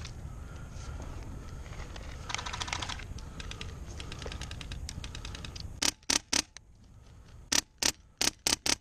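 Airsoft rifle firing single shots as sharp clacks: three quick shots about six seconds in, then after a short pause a fast string of about six more near the end. Before the shooting there is only a low rumble on the microphone.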